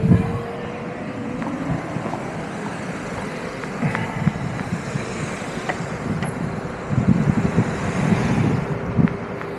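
Steady road traffic noise, a continuous rush with a faint hum, growing louder for a couple of seconds near the end.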